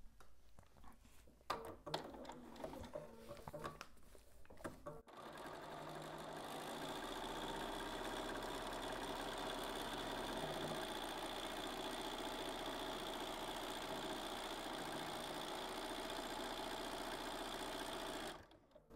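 Bernina 570 QE sewing machine stitching a steady seam through fabric and foundation paper. It starts about five seconds in, after a few soft handling clicks, and stops suddenly just before the end.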